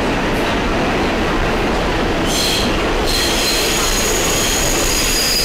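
Subway car running, heard from inside the car: a steady rumble of wheels on track. A little over two seconds in, high metallic wheel squeal sets in and holds as a steady shrill whine.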